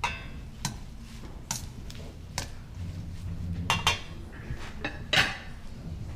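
Dishes and utensils clinking and knocking: about seven sharp strikes spread irregularly, the first ringing briefly.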